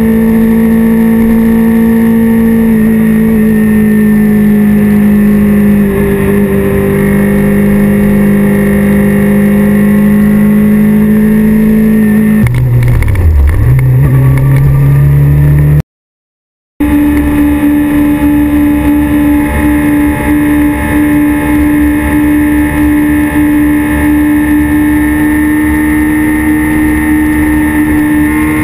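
Honda CBR600RR's inline-four engine running at steady high revs. About twelve seconds in, the revs fall away and climb back. The sound then cuts out for about a second and returns at a steady, higher pitch that rises near the end.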